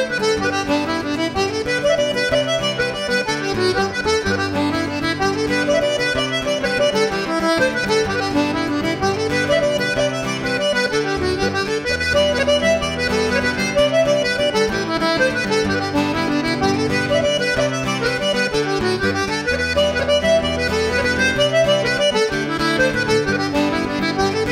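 Button accordion playing the melody of Irish jigs over acoustic guitar chord accompaniment.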